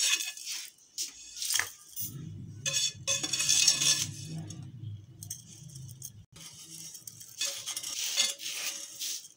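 Spatula scraping and tapping against a nonstick frying pan as roasted desiccated coconut is tipped out into a bowl, in short irregular strokes. A low hum runs for a few seconds in the middle.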